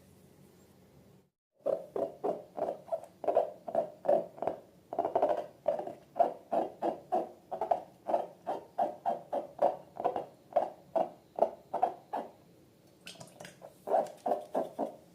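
Slime being squeezed and kneaded by hand, making short pitched squelches about three times a second. They stop briefly near the end, then start again.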